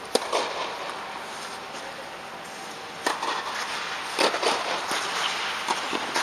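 Tennis balls being hit by rackets and bouncing on the court during a rally. There are a few sharp pops at uneven gaps: one at the start, then a cluster after about three seconds. Each pop echoes briefly in the large air dome.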